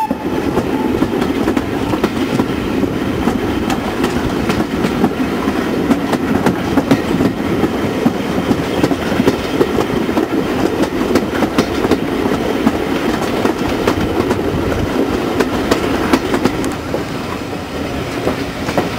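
Railway carriage running steadily along the track, its wheels clicking over the rail joints.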